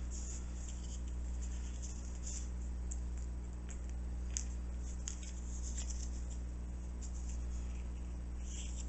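Faint pencil scratching and small handling taps on a wooden paint stick as an outline is traced onto it, over a steady low hum.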